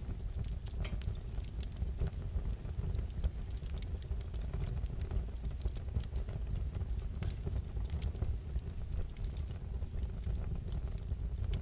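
Wood fire in a fireplace crackling: irregular sharp pops and ticks over a steady low rumble.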